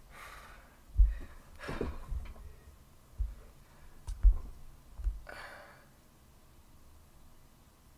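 A young man's sighs and heavy exhales, with a few dull low thuds, like bumps against the desk or microphone, in between; it goes quiet for the last couple of seconds.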